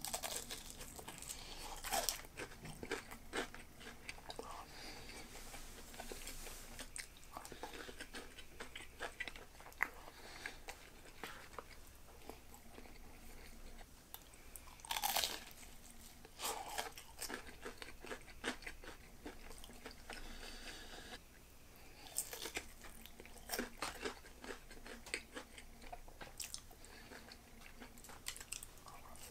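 Chewing and crunching on crisp, freshly fried karaage: irregular crackly crunches, with a louder bite about halfway through and another run of crunches in the last third.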